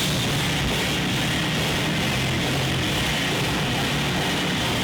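Loud, distorted rock music with electric guitar, a dense, steady wall of noise.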